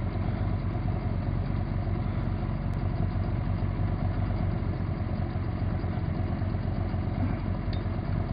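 Outboard motor idling steadily, a low, even hum with a fast regular pulse.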